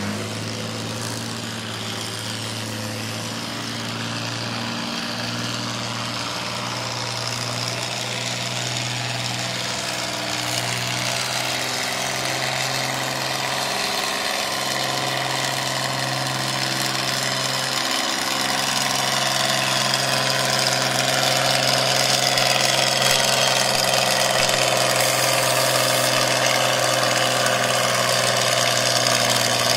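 Engine of an International Farmall tractor pulling a weight-transfer sled, running steadily under load at an even pitch. It grows gradually louder as the tractor comes down the track.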